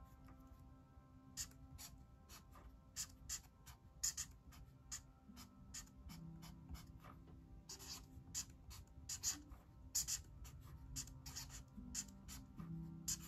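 Felt-tip marker scratching short, quick strokes on sketchbook paper while writing block letters, over faint background music.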